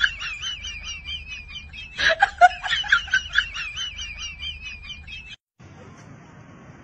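A chirping, warbling sound effect, played twice in a row, the second time about two seconds in. It cuts off about five seconds in, leaving faint room noise.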